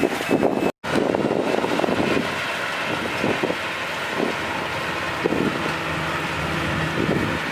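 Kubota DC-35 combine harvester's diesel engine running steadily, with wind buffeting the microphone. The sound cuts out completely for an instant about a second in.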